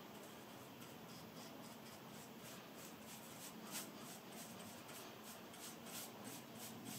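Paintbrush strokes brushing anti-rust paint onto rust-scraped metal: faint, quick scratchy strokes several times a second, one a little louder about halfway through.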